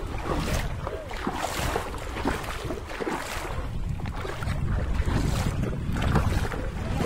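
Wind buffeting the microphone over running river water, a steady rushing noise with a fluttering low rumble and irregular louder gusts or splashes.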